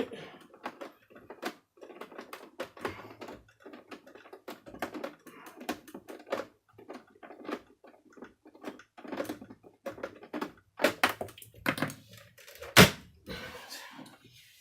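Plastic housing parts of a Miele vacuum cleaner being handled and fitted together during reassembly: irregular clicks, taps and knocks, with one loud sharp knock near the end.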